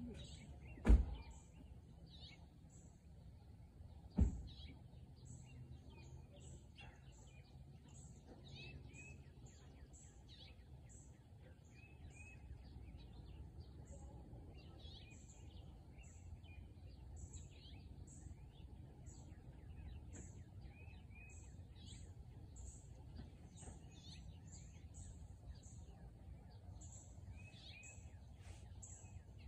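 Short chirped call notes of a female house finch, given on and off throughout, over a steady low rumble of background noise. Two loud thumps come about one and four seconds in, and a faint high note repeats evenly beneath the calls.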